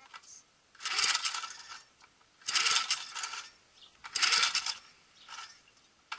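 Briggs & Stratton 148cc push mower engine being pull-started: three hard pulls of the recoil starter, each a second-long rattling whirr of the cord and the engine turning over, with quiet between pulls because the engine does not catch.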